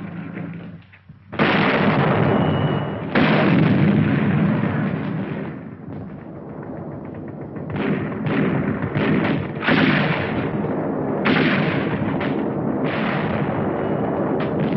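Artillery and gunfire on a 1940s film soundtrack: two heavy blasts about a second and a half apart near the start, then a quicker run of shots, roughly one or two a second, through the second half.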